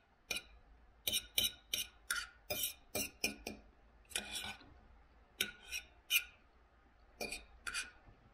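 Knife and fork clinking and scraping on a plate while cutting a minced-beef patty: short, irregular clicks and scrapes, about two or three a second, with brief pauses.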